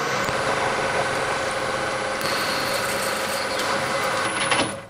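Metal lathe running with a cutting tool taking a cut in a spinning aluminium workpiece. The steady, loud machining noise stops abruptly near the end.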